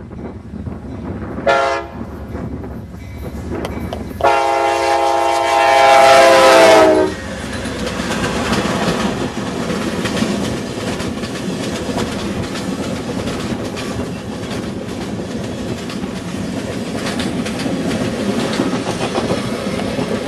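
Amtrak diesel passenger train passing at speed: its locomotive horn sounds a short blast, then a long, loud blast that drops in pitch near its end as the locomotive goes by. Then comes the steady rush and rumble of the bilevel passenger cars rolling past, wheels clicking over the rail joints.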